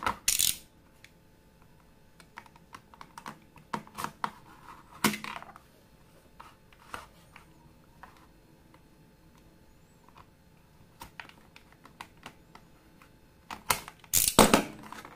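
Hard plastic blister packaging being handled and cut open with a snap-off blade cutter: scattered clicks, taps and crackles of the plastic, with a louder cluster near the end.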